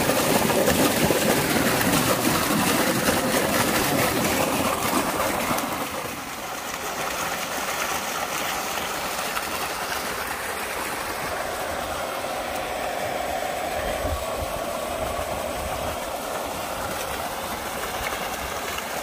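Water gushing from a solar-powered tubewell's discharge pipe into a brick channel: a steady rushing noise, loudest for the first six seconds, then lower.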